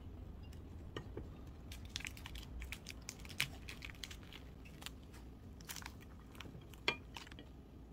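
Faint, scattered crunches and crackles of a crispy bánh xèo crepe being broken up and eaten, with a sharper crack about three and a half seconds in and another near the end.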